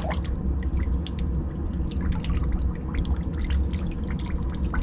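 Dirty washing-machine drain water dripping and trickling from the opened drain pipe into a bucket in small irregular drops, over a steady low hum. The water is black with soap-scum buildup.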